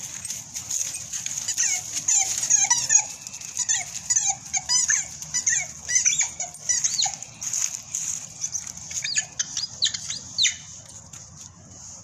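American bully dogs whining and yipping in quick, short, high cries as they play. Dry leaves crunch under paws and feet throughout. The cries die away in the last second or so.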